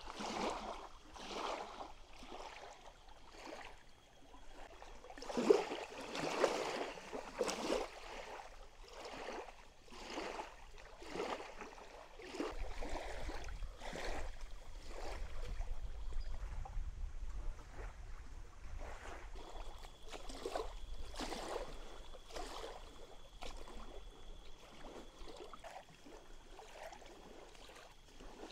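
Small waves lapping and splashing onto a muddy, reedy lake shore, a wash of water every second or so. A low rumble comes in through the middle, and a faint steady high tone sounds in the last part.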